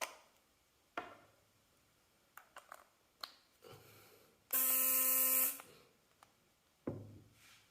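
Philips sonic electric toothbrush with a broken HX6063 diamond replacement brush head running for about a second, a loud, harsh buzz: the abnormal noise of the damaged brush head. Handling clicks and taps come before and after it.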